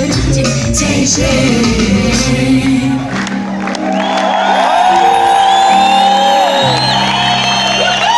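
Live band and singer performing an Ethiopian gospel worship song in a large hall. About three seconds in, the drum beat stops, leaving a held chord under high, gliding singing and whoops from the crowd.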